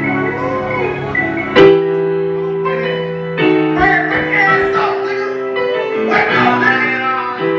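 Loud music: sustained keyboard chords with a singing voice over them, and a sharp hit about a second and a half in.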